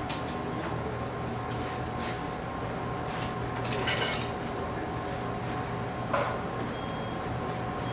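Fast food restaurant ambience: a steady hum of kitchen equipment under the clatter and clink of dishes and utensils, with louder clatters about three to four seconds in and again around six seconds. A short high beep sounds near the end.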